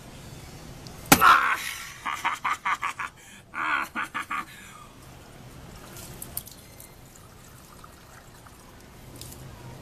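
A bare hand striking a young green coconut with one sharp crack about a second in, followed by two runs of quick rhythmic pulses and coconut water splashing as the opened nut is poured out.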